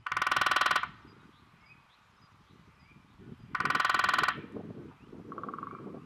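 Woodpecker drumming on resonant wood: two loud drum rolls of very rapid strikes, each under a second long, one right at the start and another about three and a half seconds later, then a fainter, shorter drum near the end.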